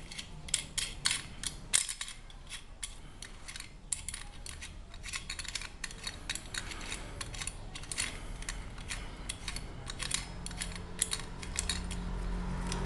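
Small metal parts of a pressure lantern's burner head clicking and scraping as they are handled, fitted and screwed back together by hand: a run of irregular light ticks and taps. A low hum builds near the end.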